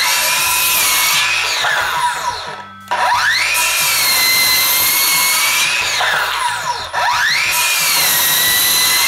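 Ryobi P508 18V brushless circular saw with its stock 24-tooth blade making rip cuts in a clamped 2x4. The motor spins up with a rising whine and runs steady through the cut. It winds down just before three seconds in, then starts up again twice for two more cuts.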